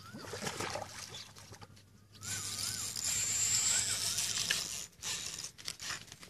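A splash at the water surface about half a second in, then a few seconds of steady whirring from the fishing reel as line is wound or drawn off while a fish is on.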